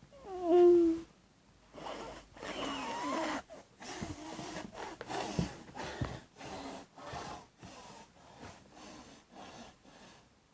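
A person's voice imitating snoring: a short, loud pitched sound that falls at the start, then a run of wheezy, snorting breaths that grow fainter.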